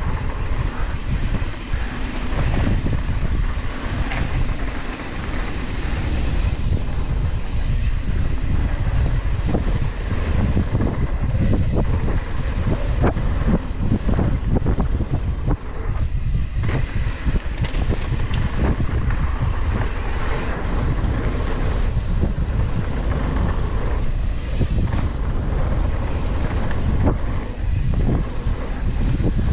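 Mountain bike descending a dirt trail at speed: steady wind rumble on the rider's camera microphone over tyre noise on the dirt, with frequent short knocks and rattles from the bike over bumps.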